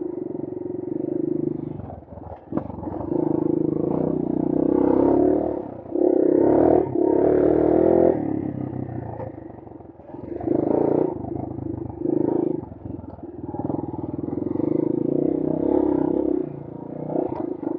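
Brozz 250 engine running under a rider's throttle, rising and falling again and again as the throttle is opened and eased off, loudest about six to eight seconds in.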